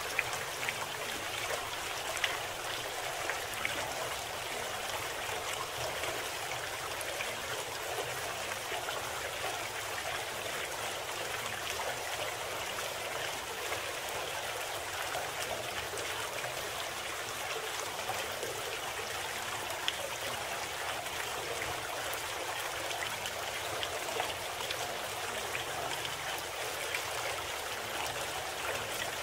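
Steady running water with a fine trickling texture, used as the masking sound bed of a subliminal audio program.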